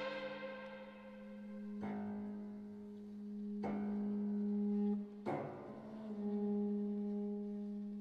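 Contemporary chamber music: a low note held steadily with slow swells, while the strings of a grand piano are played by hand inside the instrument, three separate attacks that each ring and die away.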